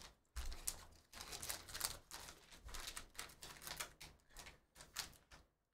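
A shiny black plastic pouch crinkling and tearing as it is pulled open by hand: a quick, irregular run of crackles that stops shortly before the end.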